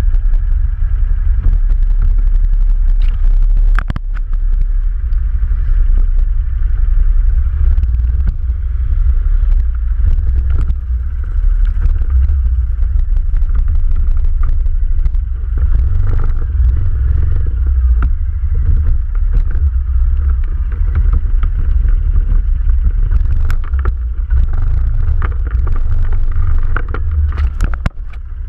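ATV running while riding over a forest track, with a deep rumble and scattered sharp knocks and rattles throughout.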